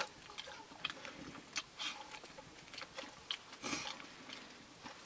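Quiet eating sounds: chewing and hands working rice on metal plates, with scattered small clicks and taps.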